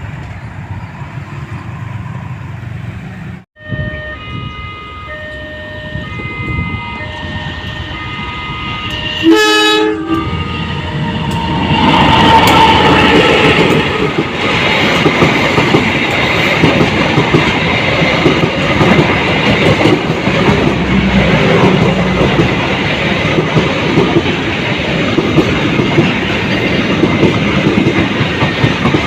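Indonesian CC 201 diesel-electric locomotive sounding its single-tone horn in several short blasts, then one much louder short blast. The train then passes close with loud running noise and wheels clattering over the rail joints.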